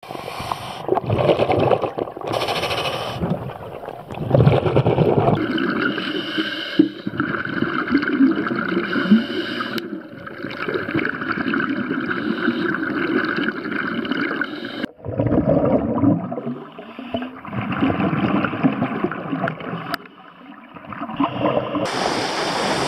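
Underwater sound of scuba divers breathing through full face masks, with exhaled air bubbling and gurgling in irregular rushes that come and go every second or two. Near the end a brighter, steady rushing sound takes over.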